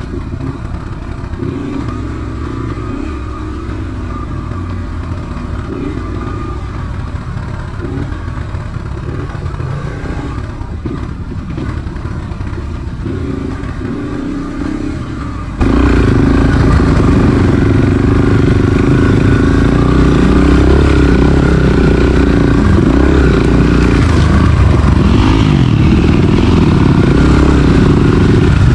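Enduro dirt bike engine running while riding a trail, its note wavering up and down with the throttle. The sound becomes suddenly much louder about halfway through.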